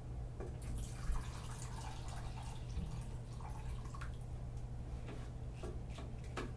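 Water poured from a mug into a rice cooker's pot of ground beef and rice, splashing and trickling for about three seconds from about a second in, with a few light knocks near the end.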